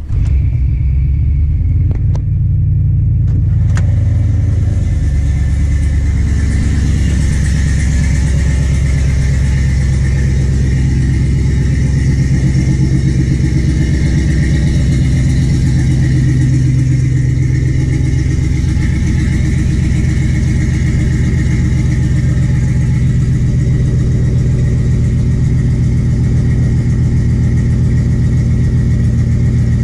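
LS-swapped V8 in an OBS Chevrolet pickup idling steadily through a temporary exhaust with a muffler: still not quiet, but a lot more tolerable. There are a couple of sharp clicks in the first few seconds.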